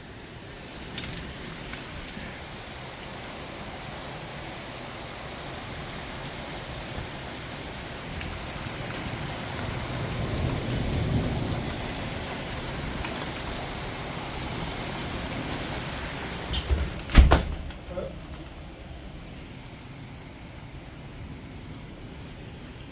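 Thunderstorm: heavy rain falling steadily, with a low rumble of thunder swelling through the middle. About seventeen seconds in comes a sudden sharp crack, the loudest sound.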